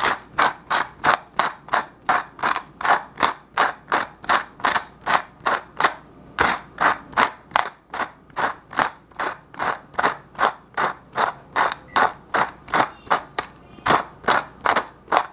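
Hand-turned pepper mill grinding peppercorns: a crunchy rasp with each twist, about three twists a second, pausing briefly twice.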